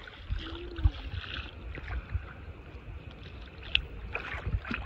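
Shallow seawater sloshing and lightly splashing as a child wades through it, with a few sharper splashes, over a low, uneven rumble of wind on the microphone.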